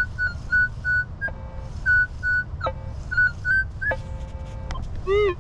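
Metal detector beeping on a buried target: a string of short high beeps about twice a second, then longer tones at several pitches and a few quick rise-and-fall chirps near the end.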